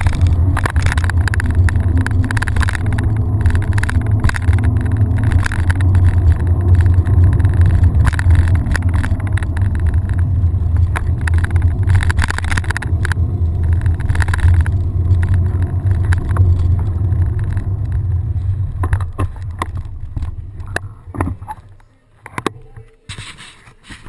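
Wind rumbling over a handlebar-mounted GoPro's microphone as a mountain bike rolls along, with frequent knocks and rattles from the bike and the loosely tightened camera mount. The rumble fades out about 20 seconds in as the bike comes to a stop, leaving a few faint knocks.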